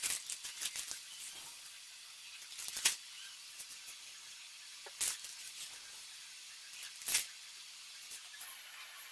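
Cupfuls poured from a cup into a hot pot of browned chicken, the contents hissing and sizzling in four short bursts, the loudest about three seconds in.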